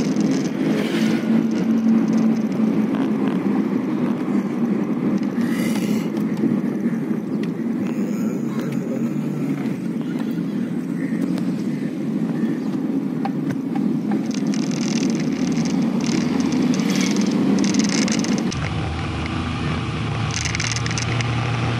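Steady engine and road noise inside a moving Hyundai Getz's cabin. Near the end the rumble changes abruptly and sits lower.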